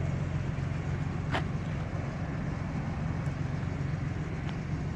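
Steady low idling rumble of a 2018 Ford Raptor's twin-turbocharged 3.5-litre V6, with a single sharp click about a second and a half in.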